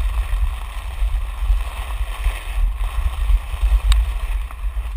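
A body sliding fast down a wet plastic slip-and-slide sheet: a steady rushing, splashing hiss of water and plastic, under heavy wind rumble on the action camera's microphone, with one sharp tap about four seconds in.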